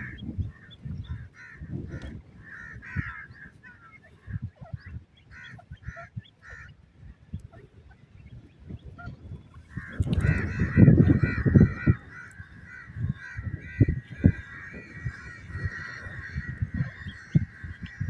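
Francolins calling: short, repeated honk-like notes at first, then from about ten seconds a denser, unbroken run of calls. Low rumbling thumps sound throughout and are loudest just after the calls thicken.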